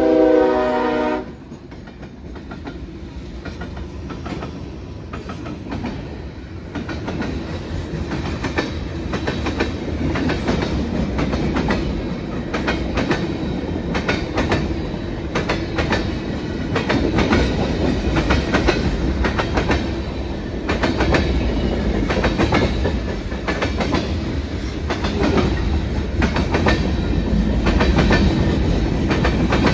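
Train horn sounding a chord that cuts off about a second in, followed by a train rolling by with a steady clatter of wheels over rail joints that builds up and stays loud.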